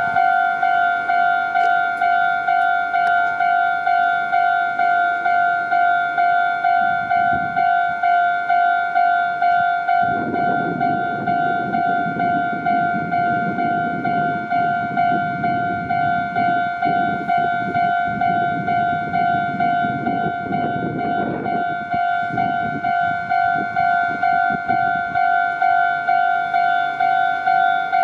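Japanese electronic railroad-crossing warning bell ringing in a fast, even repeat of two-tone dings. A train rumbles through the crossing for about twelve seconds in the middle, under the bell.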